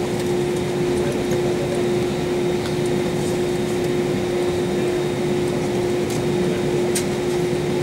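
Steady cabin noise inside an Airbus A320 after landing: a constant rush of air with a steady hum tone, plus a few faint clicks.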